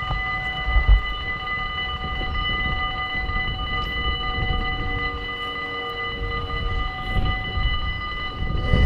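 Dutch level-crossing warning bells ringing steadily while the barrier booms lower, with a low rumble underneath.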